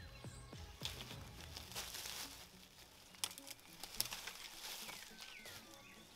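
Footsteps crunching and crackling through dry leaf litter and twigs on a woodland floor, an uneven run of light crunches.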